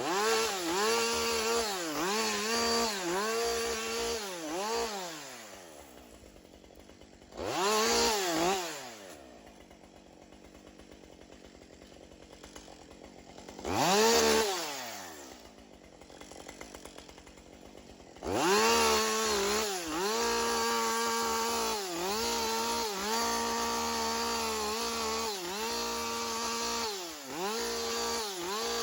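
Two-stroke chainsaw revved in several quick bursts, then dropping to a quiet idle with two short throttle blips. About two-thirds of the way in it goes to high revs and stays there with repeated dips in speed, as the chain cuts into wood.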